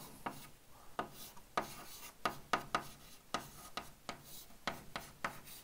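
Chalk writing on a blackboard: a string of short, irregular taps and scratches as the strokes are written.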